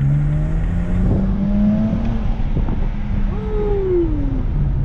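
BMW 335i's N54 twin-turbo inline-six running on the road, its note climbing over the first couple of seconds and then holding steady, with the engine now running cleanly on a replacement ignition coil.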